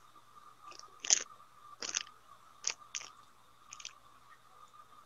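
About half a dozen short, faint clicks and crackles over a steady low hum, the loudest about a second in.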